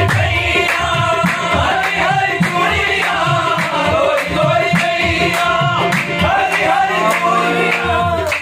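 Qawwali: male voices singing together over harmonium, with the accompanists clapping the beat in a steady rhythm.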